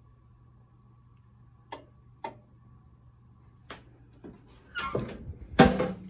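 Fire alarm panel resetting in a quiet room, with a faint steady tone that stops about halfway through. Two sharp clicks come about two seconds in, then rustling and a loud knock near the end as the phone recording it is moved.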